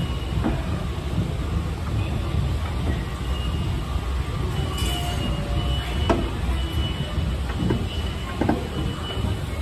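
Subway station escalator running while being ridden upward: a steady low rumble with scattered clicks and knocks. A faint high tone comes and goes from about a third of the way in.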